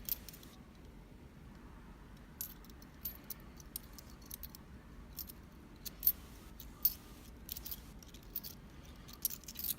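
Keys and locks on a metal key ring clinking and jingling as they are worked off the ring, in scattered light metallic clicks that come more often in the second half.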